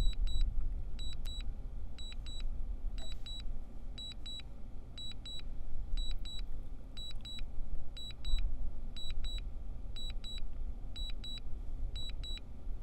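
Drone remote controller beeping in quick pairs of short high beeps, a pair about every half second, over a low wind rumble on the microphone.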